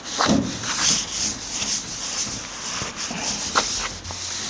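Hand sanding or scuffing of the camper box's panel, in irregular rasping strokes with an occasional knock, as the surface is prepared for painting.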